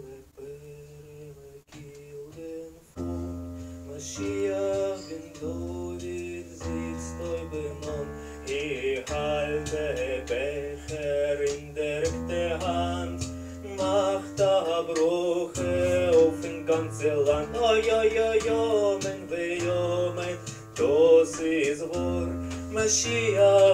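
Live stage-keyboard music: an instrumental passage of held chords under a moving melody, soft for the first three seconds, then fuller and louder.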